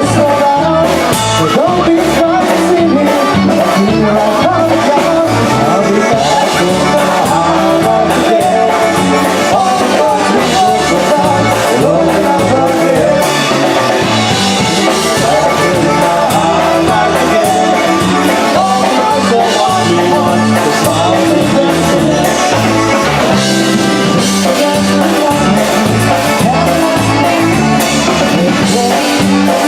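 Polka band playing a polka at a loud, steady level with a regular beat.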